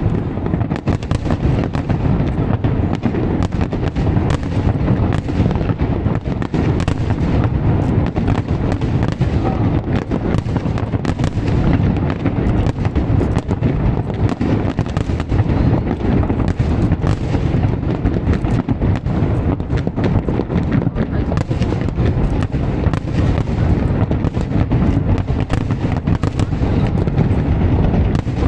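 Fireworks display: a dense, continuous barrage of aerial shell bursts and crackling reports, with deep booms overlapping without pause.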